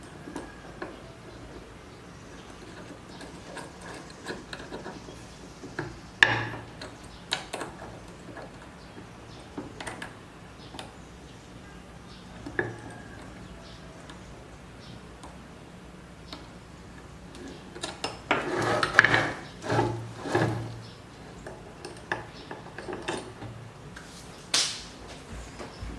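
Metal machine parts and hand tools clinking and knocking at irregular intervals during hand assembly. There are busier runs of knocks about six seconds in and again around nineteen to twenty-one seconds, and a sharp clink near the end.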